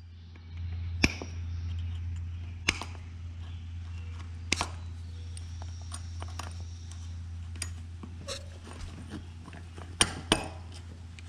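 Scattered metal clicks and clinks of a new retaining pin being fitted at a garden tractor's wheel hub and axle, over a steady low hum.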